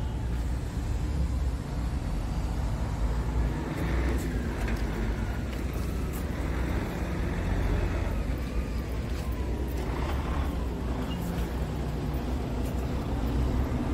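Scania R tractor unit's diesel engine idling steadily.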